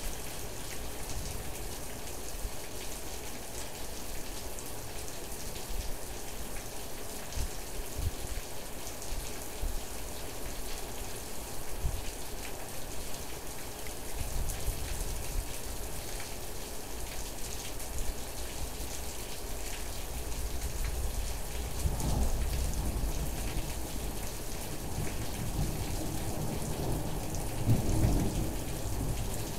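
Steady rain falling, with several low rumbles of thunder swelling and fading, the loudest near the end.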